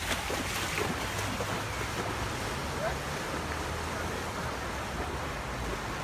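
Steady wash and sloshing of floodwater around a person wading through knee-deep water in a flooded street, with wind on the microphone.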